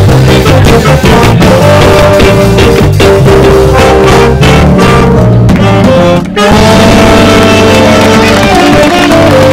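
Live band playing loud and close, with electric guitars, keyboard, drums and a trombone horn section. The band stops for a moment about six seconds in, then comes straight back in.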